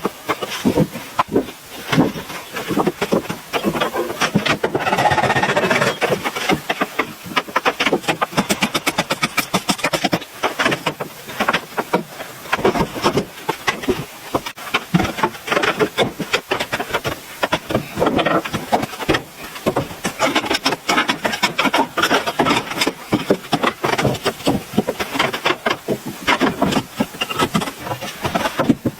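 Rapid, irregular knocking and scraping from hand work, with a stretch of steadier rasping noise about five seconds in.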